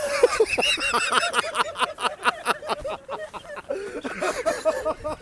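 A couple laughing hard together, a quick string of high, excited laughs that thins out toward the end.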